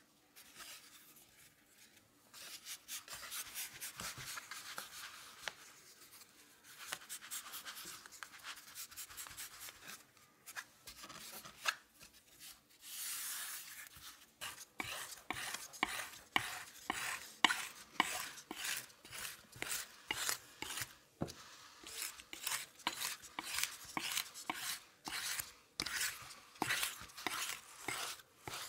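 Fingers rubbing and pressing soft shortcrust pastry into a metal tart ring, a soft brushing hiss. About halfway through it gives way to a run of short, sharp strokes, about two a second: a small knife slicing the excess dough off along the ring's rim.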